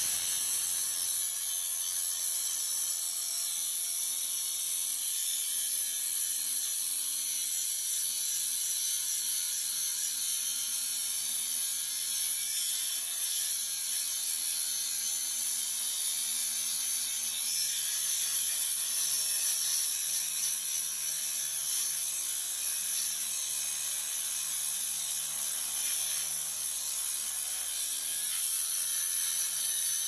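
Angle grinder with an abrasive cut-off disc grinding through a steel disc lock: a steady, high-pitched grinding without a break.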